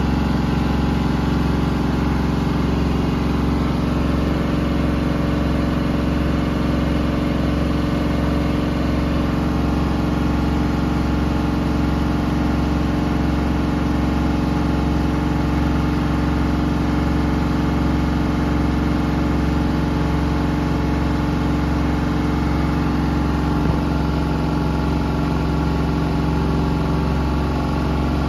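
Bosch VarioPerfect washing machine's EcoSilence Drive brushless motor turning the drum at a steady speed in service mode. It gives a steady hum of several tones over a wash of drum and water noise.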